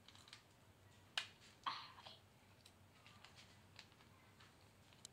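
A small plastic packet being opened and handled: a sharp snap about a second in, a brief crinkle right after, then a few faint ticks.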